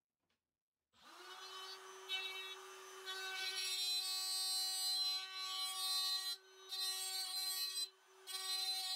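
Makita 18V cordless trim router starting up about a second in with a steady whine, then cutting into plywood as it is swung around a circle-cutting jig. The cutting noise drops away briefly twice while the motor keeps running.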